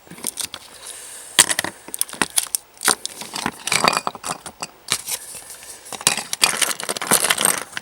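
Product packaging being handled and rummaged through, with irregular crinkling and rustling broken by many sharp clicks and taps.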